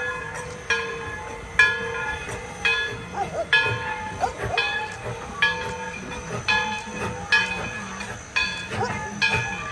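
Steam locomotive bell ringing steadily, one stroke a little under once a second, each stroke ringing on and fading.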